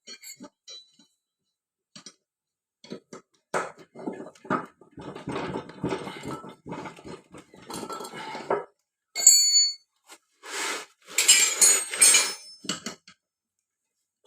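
Metal clinking and rattling from a spanner and the steel cutting blades and bolts of a mower cutting deck being worked, with a few clear ringing chinks of metal on metal near the middle and later on.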